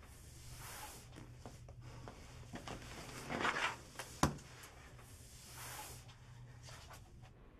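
Quiet room tone with a low steady hum, soft rustling movement, a louder rustle a little past three seconds in, and a single sharp knock just after four seconds.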